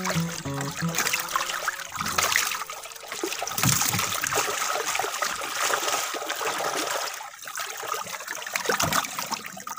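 Water splashing and dripping as a wet mesh fish trap full of live catfish is handled and the fish are grabbed.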